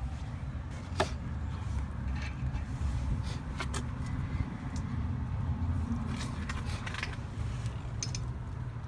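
Scattered light metallic clinks and taps of hand tools and brake parts being handled, with one sharper clink about a second in, over a steady low rumble.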